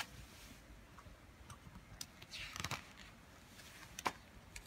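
A picture book's paper page being handled and turned by hand: faint rustles and soft clicks, with a sharper tap about four seconds in.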